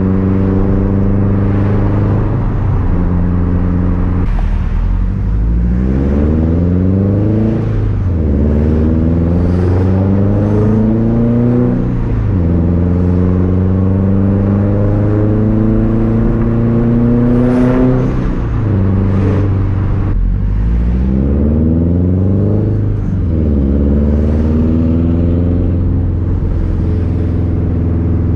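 Turbocharged 2013 Subaru STI flat-four with an unequal-length Tomei Expreme Ti exhaust accelerating through the gears: the boxer rumble climbs in pitch, then drops at each upshift, about four times. A short hissing flutter from the turbo comes at one shift about two-thirds of the way in.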